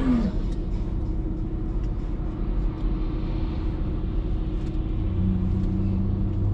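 Steady low vehicle rumble with a constant hum; a short falling tone sounds right at the start, and a deeper steady drone joins about five seconds in.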